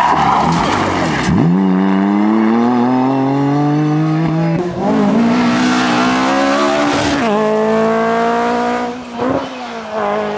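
Rally car engine under hard acceleration, pitch climbing through each gear with upshifts about four and a half and seven seconds in, then holding steady with a brief lift-off near the end. A noisy rush of tyre sound comes in the first second.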